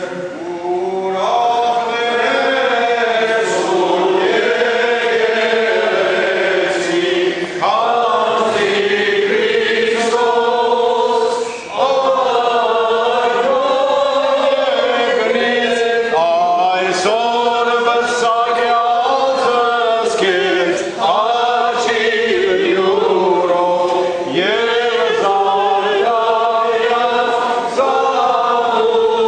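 Choir singing Armenian church chant: several voices together in a slow melody that runs on without a break, apart from brief breaths about twelve and twenty-one seconds in.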